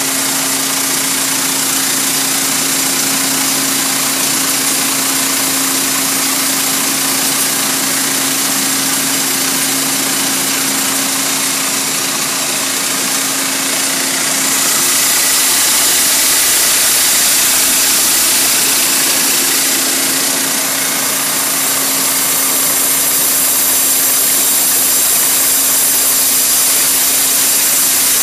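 Centrifugal finishing machine running: a steady motor hum under a loud, even hissing rush that grows a little louder about halfway through.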